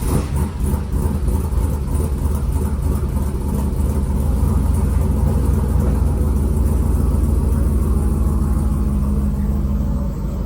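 Turbocharged LS V8 of a 1967 Chevy C50 truck running under way, a steady low rumble.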